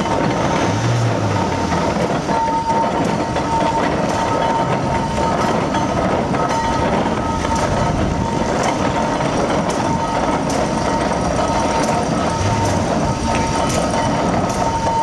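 Steam traction engine running as it drives slowly along the road, a steady mechanical noise with faint regular beats and a steady high tone over it.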